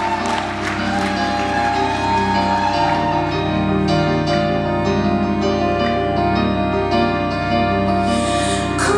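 Live keyboard improvisation: held chords ringing under a line of struck notes at a slow, steady pace.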